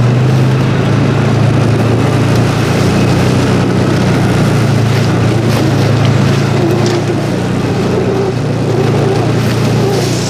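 A vehicle engine running at a steady speed with a low hum, heard from on board while driving.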